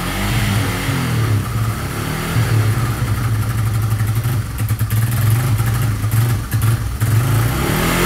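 Yamaha Bear Tracker 250 quad's single-cylinder four-stroke engine running with its rebuilt carburettor, the revs rising and falling, with some rattling clatter about halfway through.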